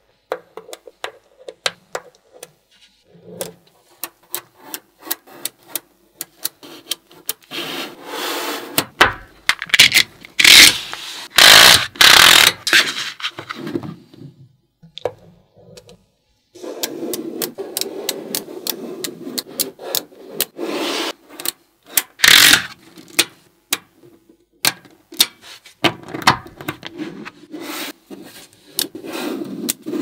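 Small magnetic balls clicking sharply as strips of them are snapped together and pressed onto a wall. Longer stretches of rubbing and scraping come as the balls slide against each other and the tabletop.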